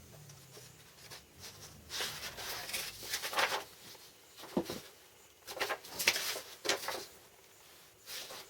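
A run of short, irregular scrapes and knocks, the sound of things being handled and moved about at a workbench. A faint low hum dies away in the first second or two.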